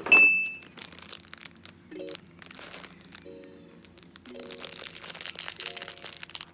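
Clear plastic packaging of a pack of gel pens crinkling and crackling as it is handled and opened, densest in the last two seconds. A short bright chime rings out at the very start, and soft background music plays underneath.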